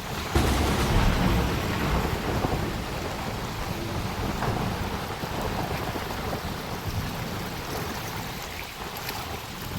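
Heavy rain falling steadily, with a low rumble of thunder that starts suddenly about half a second in and fades after a second or two.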